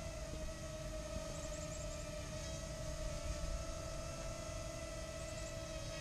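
Parrot Mambo minidrone's small electric motors and propellers whining at a steady pitch while it hovers, over a low rumble.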